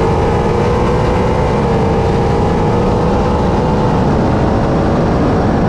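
Two Ford Mustang 5.0 L Coyote V8s running on E85 and pulling at full throttle side by side at high speed, from about 85 to 115 mph. The engine note holds steady in a high gear and climbs only slowly, over heavy wind and road rush.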